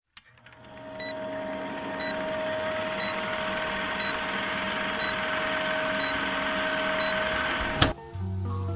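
Old-film countdown leader sound effect: a film projector rattling with crackly hiss and a steady hum, with a short beep marking each second. It ends with a sharp click about eight seconds in, and a guitar tune starts just after.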